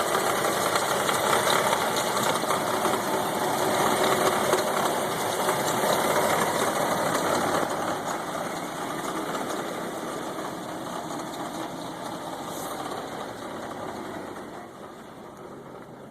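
1992 Range Rover Classic's V8 engine idling roughly, getting gradually fainter over the second half.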